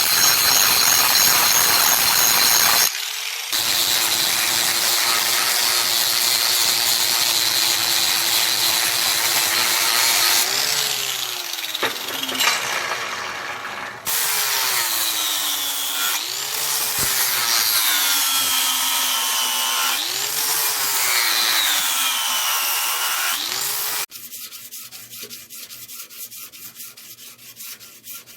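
A power sander running against a wrought iron axe head to polish it, a steady motor hum under loud gritty noise, with the motor's pitch dipping and recovering about four times in the later part. Near the end it gives way to quieter hand sanding, fast scratchy rubbing strokes.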